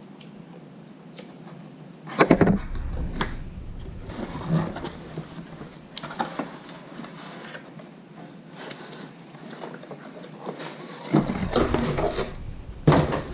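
Hands handling parts and packaging: scattered knocks, clicks and rustling, with heavier bursts of handling about two seconds in and again near the end.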